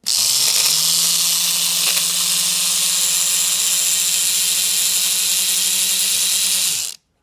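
1955 Remington electric shaver with a freshly rewound armature running on a power adapter: the motor spins up quickly to a steady hum with a strong high hiss, runs for about seven seconds, then stops suddenly. The shaver running shows the armature rewinding has worked.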